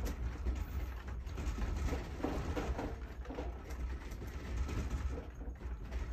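Deep, steady rumble with light clicking and rattling of household objects as the room shakes in the earthquake.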